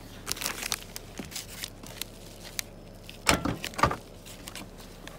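Paper and plastic packaging rustling and crinkling as a padded mailing envelope holding LED bulbs is picked up and carried. There are scattered crackles early, then two louder rustles a little over three seconds in.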